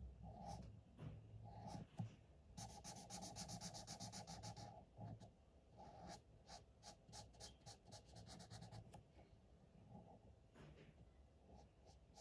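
Marker tip rubbing on paper in short back-and-forth colouring strokes, faint: a rapid run of strokes a few seconds in, then slower separate strokes at about three or four a second.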